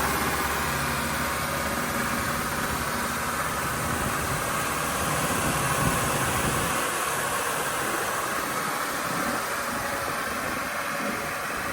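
Maweg SE II through-feed wood sander running, a steady mechanical noise with a strong hiss. Its low hum thins out about halfway through.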